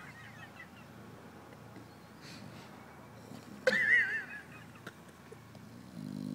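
Bulldog snoring in its sleep: faint wavering nasal whistles at the start, a sudden loud, wavering high-pitched whistling wheeze about three and a half seconds in, and a low rumbling snore near the end.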